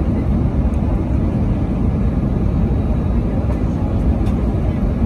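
Steady cabin noise inside an Airbus A319 on approach: a low rumble of airflow and its IAE V2500 turbofan engines, heard from a window seat.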